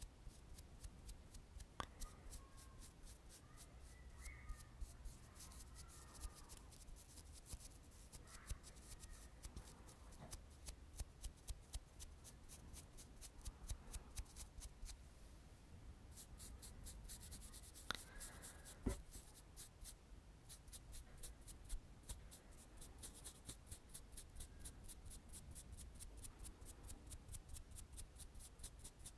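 Quiet, quick strokes of a makeup brush swept back and forth close to the microphone, a fast scratchy run of about four swishes a second with a few brief pauses.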